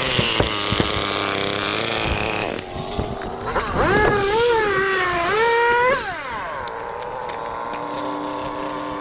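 Two-stroke chainsaw engine dropping off full throttle to a lower steady run, then revving up again with a wavering pitch for about two seconds before falling back to a steady lower speed.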